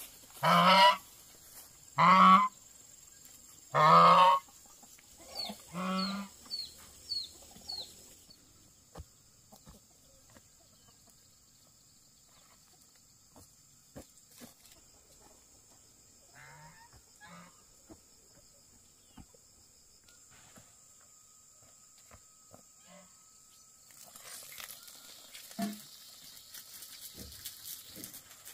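Geese honking: three loud honks in the first five seconds, then softer calls and a few short high chirps, falling mostly quiet after about eight seconds. A burst of noise comes in the last few seconds.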